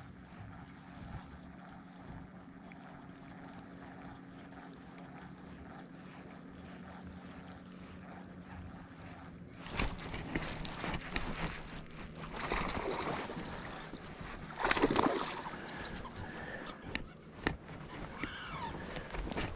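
Steady low hum of an electric bow-mount trolling motor. About halfway through, louder irregular splashing and rod-handling noise set in as a hooked fish is fought on a baitcasting rod.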